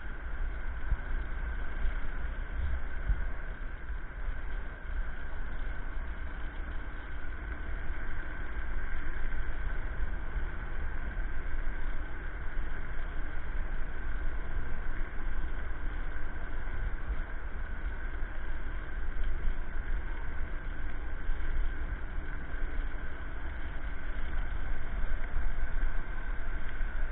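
Electric scooter riding at steady speed on a paved path: a constant low rumble of wind and tyres on the camera microphone, with a steady high-pitched whine running over it.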